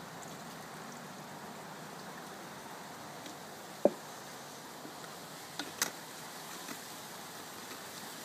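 A glass pitcher set down on a table with one sharp clink about four seconds in, then two quick clicks near six seconds as a plastic bottle and its filter cap are handled, over a steady faint hiss.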